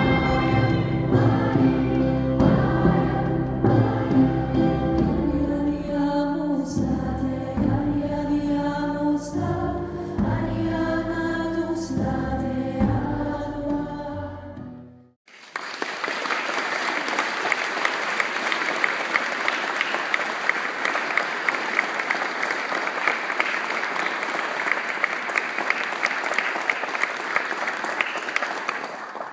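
A large choir of girls and children singing a held, chord-based piece. It ends about fifteen seconds in, and an audience then applauds steadily.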